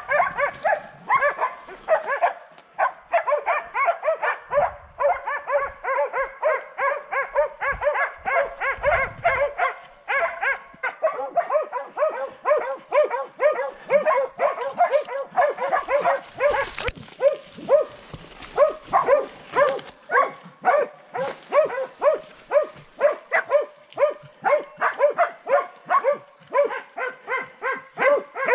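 Hunting dogs barking rapidly and without a break, several barks a second, baying at a wild boar held up in thick cover.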